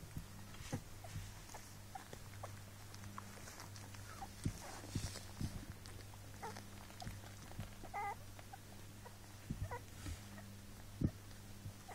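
Young puppies squirming against one another on bedding: soft rustles and small clicks, with a brief high whimper about eight seconds in and a shorter one near ten seconds, over a steady low hum.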